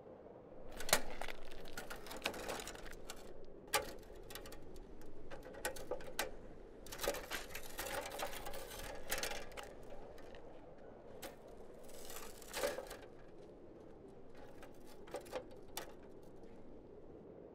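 Old roadster bicycle clicking and rattling as it is wheeled off and ridden away, in irregular bursts of quick clicks.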